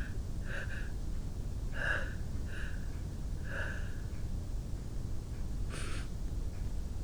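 A woman's short gasping, sniffing breaths through the nose, four of them in the first four seconds, then one brief, sharper breathy burst about six seconds in.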